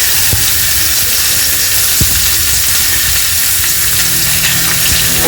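Goat meat, onions and vegetables frying in oil in a pan: a steady sizzle, with a couple of knocks from a utensil stirring against the pan, about half a second and two seconds in.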